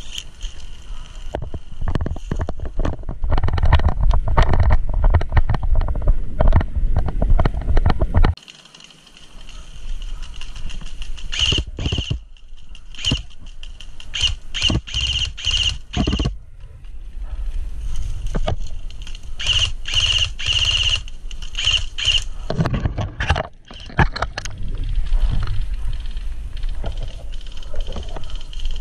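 Dry branches and twigs scraping, snapping and squeaking against a helmet-mounted GoPro and a rifle while pushing through dense brush. For the first eight seconds a heavy rumble of handling and movement on the microphone runs under rapid rustling; after that come separate sharp scrapes and squeaks.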